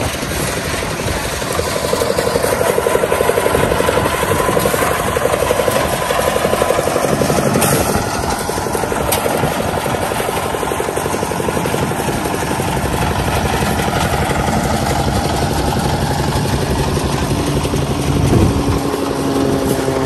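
A construction-site engine running steadily and loud close by, with a fast, even beat.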